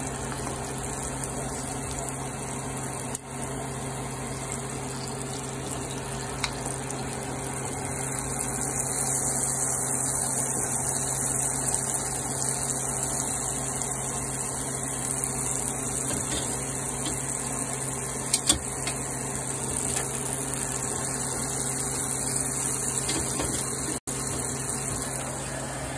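Flour-coated pork ribs deep-frying in a pan of hot oil: a steady sizzle and bubbling, over a steady low hum.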